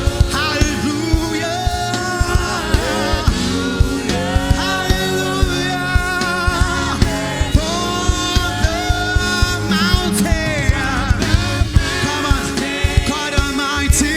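Worship music: a voice singing a wavering melody over a band with a steady drumbeat of about two beats a second.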